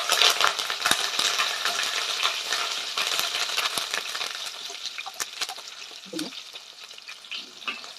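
Green chillies and curry leaves sizzling in hot sesame oil in a stainless steel pressure cooker, stirred with a wooden spatula that scrapes and taps the pan. The sizzle dies down gradually.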